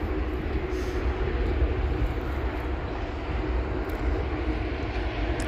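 Wind buffeting the phone's microphone: a steady, fluctuating low rumble.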